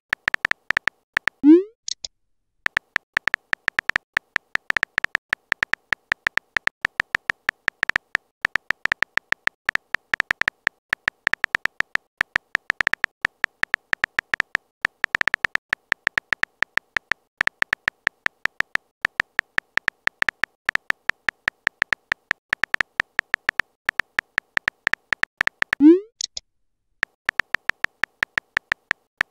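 Rapid, continuous keyboard tap clicks of a phone texting app's typing sound effect, each a short pitched tick. Twice, about a second and a half in and near the end, a quick rising swoosh marks a message being sent.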